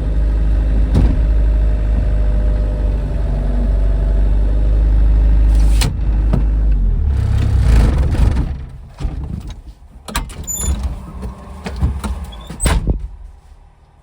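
Tractor engine running steadily, with a couple of sharp knocks, dying away about eight seconds in; a series of sharp knocks follows before it goes quiet.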